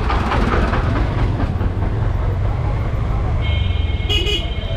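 Street noise on a bike ride through a busy village market: a steady low rumble with clattering in the first second or so. A vehicle horn honks about three and a half seconds in and keeps sounding for over a second.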